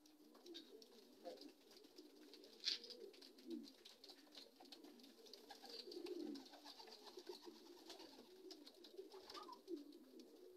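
Racing pigeons cooing softly, a low wavering murmur, with a single sharp tap about two and a half seconds in.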